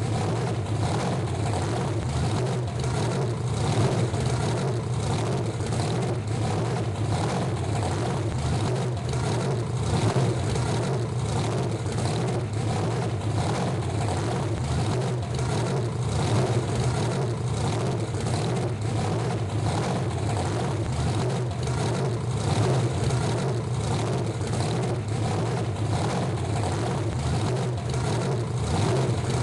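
Monster truck engine idling steadily with a deep, even, pulsing note that holds the same speed throughout, with no revving.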